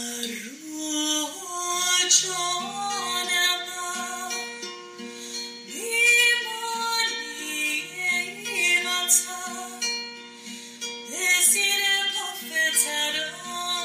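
Music with a singing voice over plucked strings and held notes, the sung phrases gliding in pitch.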